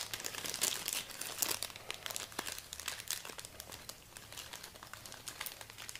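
Thin clear plastic bags holding polycarbonate crankbait lips crinkling as they are handled, the crackling densest for the first couple of seconds and then thinning out.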